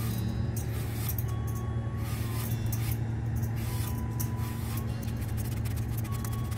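A steady low hum, with a handheld peeler scraping the skin off an apple in short, irregular strokes.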